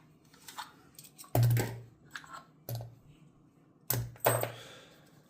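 Metal lock hardware being handled: a series of sharp metallic clicks and knocks, with four louder ones between about one and four and a half seconds in, each ringing briefly.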